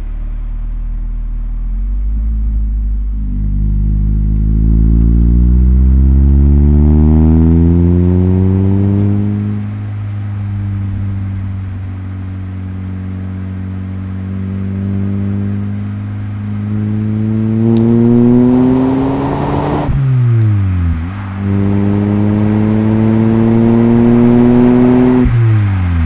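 Nissan Primera P10 1.6 SLX's 1.6-litre four-cylinder engine pulling up through the gears. The revs climb, hold steady for a while, then climb again, and they fall and pick up again at each gear change: right at the start, about three-quarters of the way in, and at the very end.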